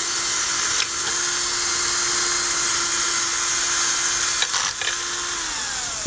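Cordless drill running steadily as it drills out the factory rivets on a microwave magnetron's metal case, a few light clicks along the way; near the end its whine falls in pitch as the motor spins down.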